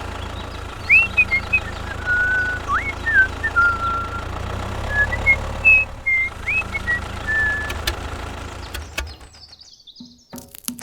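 A small engine running steadily, with short chirping, whistle-like tones over it. The engine sound fades away near the end, leaving a few clicks.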